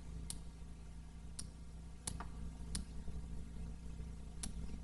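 Computer mouse clicking about six times at uneven intervals, over a low steady hum.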